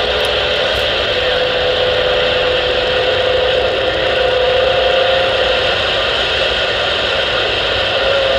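CB radio on AM channel 6 hissing with open-channel static through its speaker, a steady whistle tone riding over the hiss for a few seconds in the middle.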